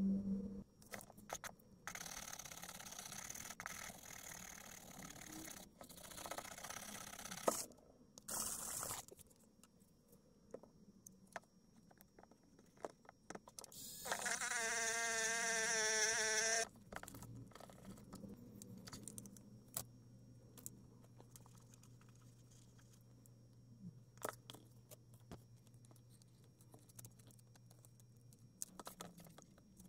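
Handheld rotary tool with a small polishing wheel running for about two and a half seconds midway, polishing a brass fitting: a steady motor whine that wavers slightly in pitch. Before and after it come light scraping, clicks and crinkling of plastic film.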